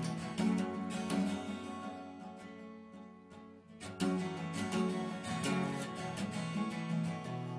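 Background music of an acoustic guitar strumming chords. The playing thins and fades in the middle, then comes back with a strong strum about four seconds in.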